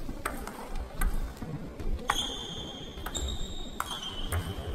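A table tennis rally: a celluloid-type ball struck by rackets and bouncing on the table, as sharp clicks about once a second. A high squeak is held for about two seconds midway through.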